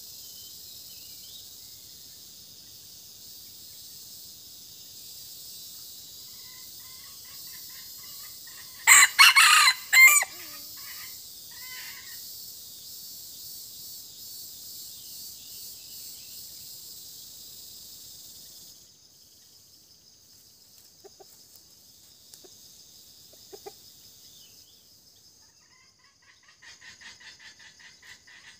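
Red junglefowl rooster crowing once, about nine seconds in: a short crow in two parts, with a few soft clucks around it. Under it a steady high-pitched insect drone runs and stops about two-thirds of the way through.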